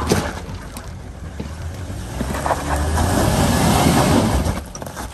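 Jeep Wrangler Rubicon engine revving hard under load as it climbs a steep rock ledge, with tyres scrabbling and spinning on rock and loose stones. It builds from about two and a half seconds in to its loudest near four seconds, then drops off. A sharp knock sounds right at the start.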